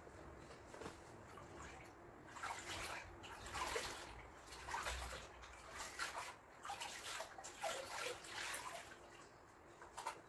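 Water sloshing and dripping in a plastic bucket as a mop is dunked and wrung out, in a run of irregular splashes.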